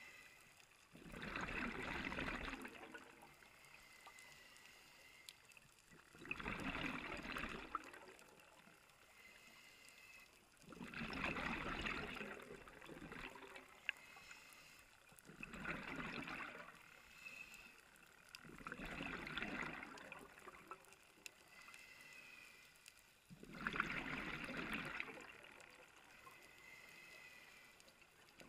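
Scuba regulator exhaling, heard underwater: six gurgling bursts of exhaust bubbles at a steady breathing rhythm, about one every four to five seconds, with quieter inhalations between.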